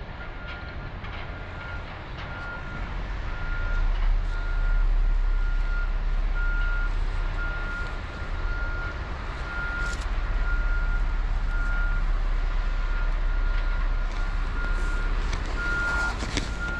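A vehicle's reversing alarm beeping steadily, one even high tone repeated a little more than once a second, over a low rumble that grows louder about four seconds in.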